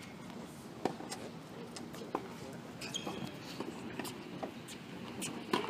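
Tennis balls struck by rackets during a practice rally: several sharp pops a second or more apart, the loudest about a second in, about two seconds in and near the end, over faint voices.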